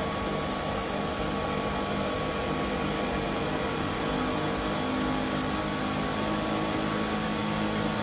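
Dyson V11 Extra cordless stick vacuum running steadily on carpet: a constant motor whine over a rush of suction airflow.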